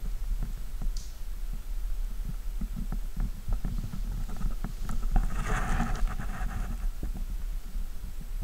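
Low, fluttering rumble of buffeting on a handheld camera's microphone, with a short rustle about five and a half seconds in.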